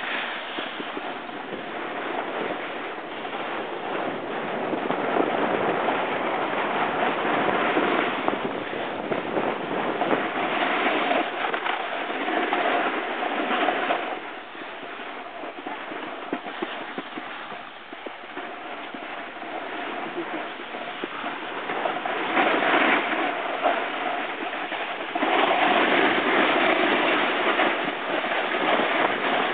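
Snowboard base and edges scraping and hissing over packed snow while riding downhill, swelling and fading with the turns. It is quieter for a stretch in the middle and louder again near the end.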